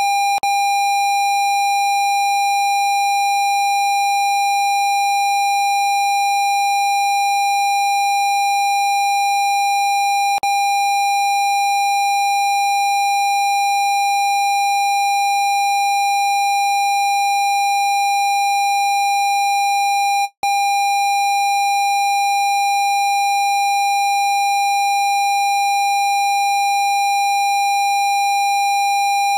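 Steady electronic test tone at 802 Hz, held at one pitch with fainter overtones above it. A faint click comes about every ten seconds, and a split-second gap about twenty seconds in.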